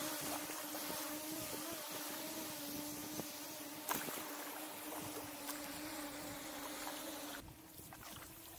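Steady, slightly wavering hum of a quadcopter drone's propellers over wind and water hiss, with a kayak paddle stroke splashing about four seconds in; the hum and hiss drop away near the end.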